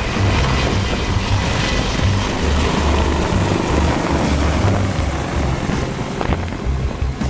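Sikorsky CH-53E Super Stallion helicopter flying low past: a deep, uneven throb from its seven-blade main rotor under a dense rush of rotor and engine noise, with a faint thin turbine whine in the first half.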